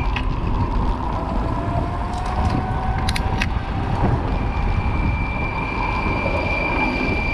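Street traffic noise heard from a moving bicycle, with wind rumble on the microphone and a slowly rising whine from a passing rail vehicle. A few sharp clicks come about three seconds in.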